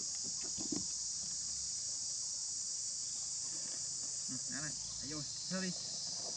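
Steady high-pitched chorus of forest insects. A few short calls that bend in pitch cut in about four and five and a half seconds in.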